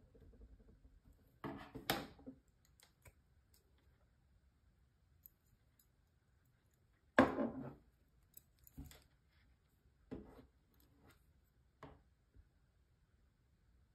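Metal fishing pliers and scissors being handled over a cutting mat: a handful of short clicks and clatters, the loudest about seven seconds in.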